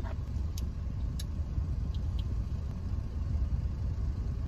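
Car engine idling, a steady low rumble heard from inside the cabin, with a few faint light clicks in the first couple of seconds.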